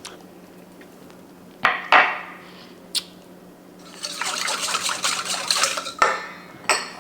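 Whisk beating a thin soy-and-vinegar dressing in a bowl: a couple of sharp clinks against the bowl around two seconds in, then a fast, continuous stretch of whisking with liquid sloshing from about four to six seconds.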